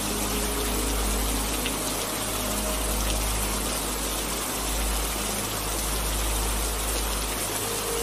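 Steady hiss of heavy rain with a low rumble underneath that swells and dips. A few faint, held music tones sound in the background.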